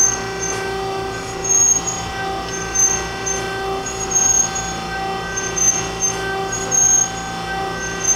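Harig EZ-Surf II surface grinder running, its grinding wheel spinning and its hydraulics on while the table is jogged hydraulically. A steady machine hum with a brief louder pulse and a high tone about every second and a half.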